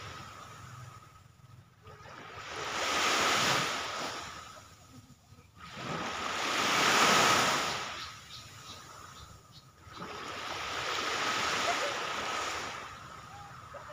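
Small sea waves breaking and washing up a sandy shore. There are three swells, each rising and falling about four seconds apart.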